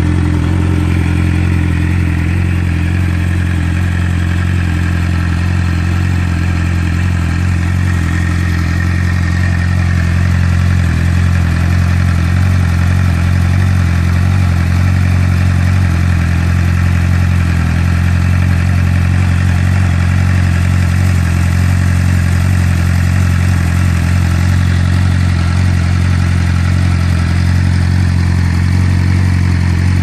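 Suzuki GSX-R sportbike's inline-four engine idling steadily through its stock exhaust.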